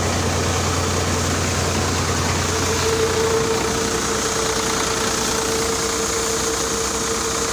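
Sonalika Tiger tractor's diesel engine running steadily, driving a threshing machine. A steady mid-pitched hum comes in about three seconds in and holds.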